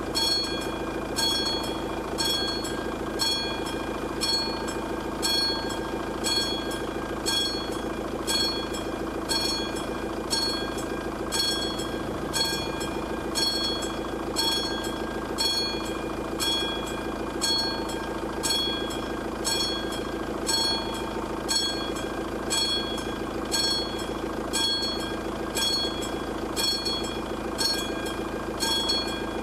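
Classic electromechanical bell of an AŽD 71 level-crossing signal ringing in an even, unbroken rhythm of strokes, the warning that the crossing is active for an approaching train.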